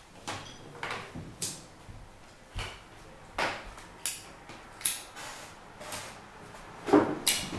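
A scatter of sharp knocks and clacks from glass beer bottles and other small objects handled on a wooden table, about a dozen over several seconds, the loudest pair near the end.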